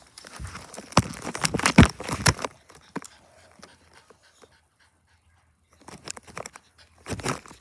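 Pomeranian panting right at the microphone, in two spells with a couple of seconds of quiet between them.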